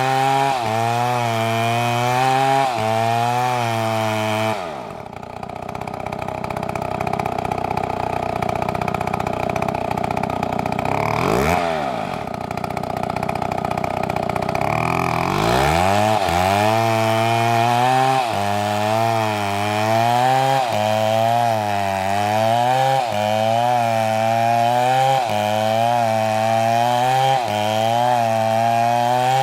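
Chainsaw running under load in wood, its pitch wavering about once a second. About four seconds in, the low part of the sound drops away and a steadier, higher tone holds for roughly ten seconds, dipping and rising once midway, before the wavering cutting sound returns.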